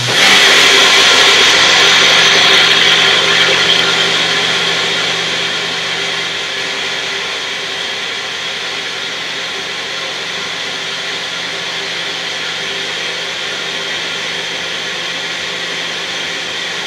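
Magic Bullet blender motor running continuously, re-blending a thick homemade hair mask to work out clumps. It is loudest for the first few seconds, then settles to a slightly lower, steady whir.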